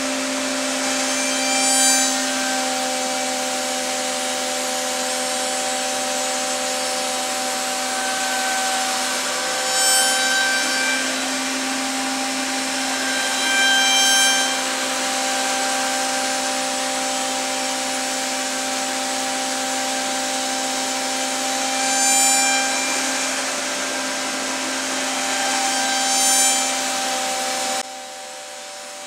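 2.2 kW CNC router spindle driving a CMT 60 mm spoilboard surfacing cutter at 12,000 rpm, skimming the face of an oak board flat: a loud, steady cutting noise with a steady whine underneath. It swells louder with a high ringing several times. The sound drops sharply about a second before the end.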